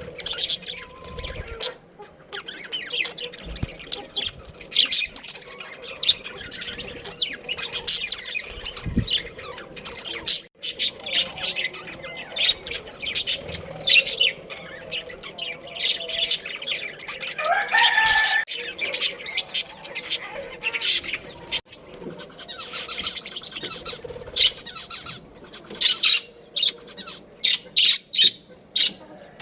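A colony of budgerigars chattering in rapid, high, short chirps, with wing flapping among them. About two-thirds of the way through, a single lower call rises in pitch from another bird.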